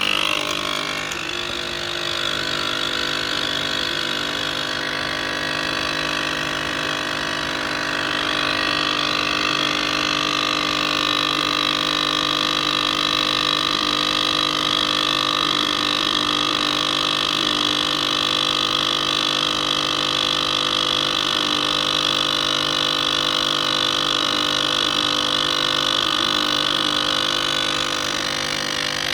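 Nespresso capsule machine's vibratory pump running steadily as it brews a large cup of coffee through the capsule, a continuous loud hum.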